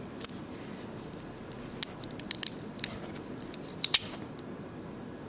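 A scatter of short, sharp clicks and light taps from hands handling a plastic nail-gel jar and its packaging in a cardboard box. The clicks come thickest in the middle, with the loudest about four seconds in.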